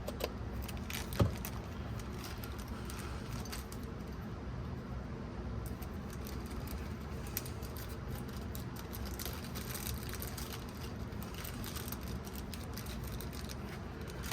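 Small metal RCA adapters being fitted into the audio interface's jacks: a few light clicks and clinks, the sharpest about a second in, over a steady low background noise.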